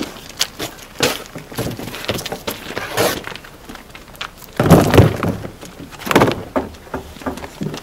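Stiff molded floor liners being handled and taken out of their cardboard packaging: irregular knocks, scrapes and cardboard rustling, with a heavier thunk about five seconds in as the one-piece rear liner is laid down on the box.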